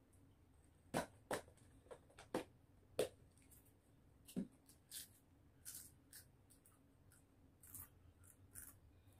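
Faint, sharp crunches and clicks of potato chips being eaten and a cardboard chip can being handled, with a few louder snaps in the first three seconds and lighter, crisper ones after.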